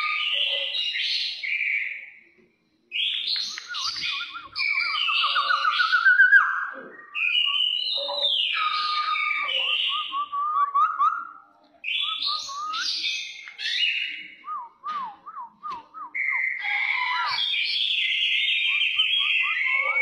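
Caged kepodang coklat (brown oriole) singing loud, varied whistled phrases in the energetic 'aggressive' style, with fast runs of repeated rising notes. It breaks off briefly twice, and the notes come in short stop-start bursts a little past the middle.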